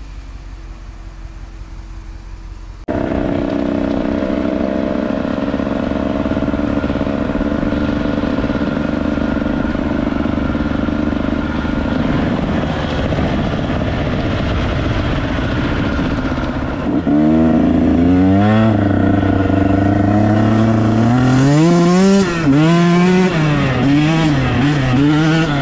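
Dirt bike engine running. A quieter steady hum in the first few seconds jumps abruptly to a loud, steady engine note, and from about two-thirds of the way through the engine revs up and down repeatedly with the throttle and gear changes.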